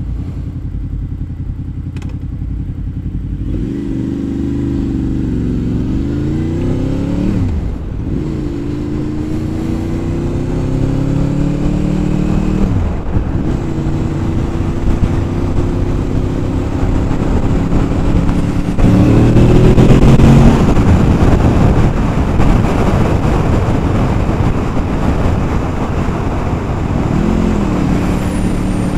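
Honda VFR800 Interceptor's V4 engine running steadily, then pulling away through the gears. Its pitch climbs and drops at each of three upshifts, about 7, 13 and 19 seconds in. A loud wind rush builds at speed before the engine eases off and settles near the end.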